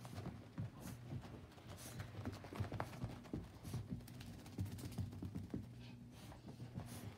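A small freshly bathed dog's paws thudding and scrabbling on carpet in quick, irregular knocks as she tears around in a post-bath frenzy, over a steady low hum.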